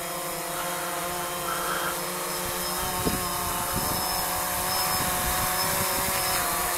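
DJI Phantom 2 quadcopter hovering, its electric motors and propellers whirring in a steady hum of several tones that grows a little louder over the seconds.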